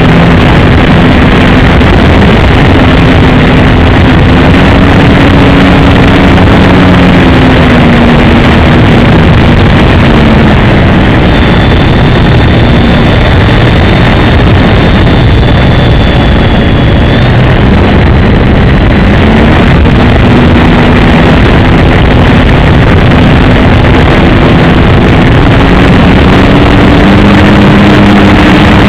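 Engine of a radio-controlled Piper J-3 Cub model plane droning in flight, its pitch rising and falling as it flies past, fading about two-thirds of the way in and then returning. It sits under a loud, steady rushing noise.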